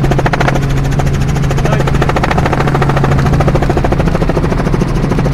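Helicopter engine and rotor running steadily in flight, heard from inside the cockpit: a loud, steady drone with a fast, even pulsing.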